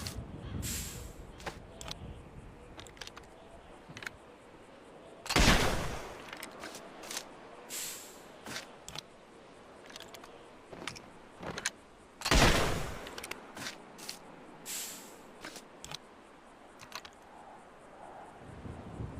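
Musket firing twice, about seven seconds apart, each a loud blast with a short echoing tail, with lighter clicks and knocks in between.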